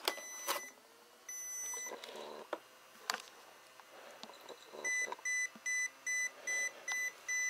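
Tamiya TEU-105BK electronic speed controller beeping at one steady high pitch: two long beeps, then from about five seconds in a run of short beeps about three a second, signalling that it is powered and waiting for the transmitter. A couple of sharp clicks sound between them.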